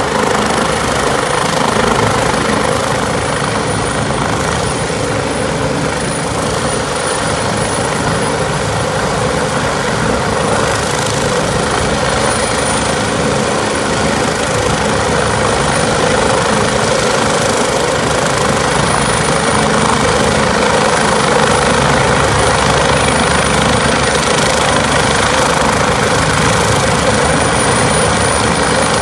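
Rescue helicopter hovering close by: a loud, steady rotor and engine noise.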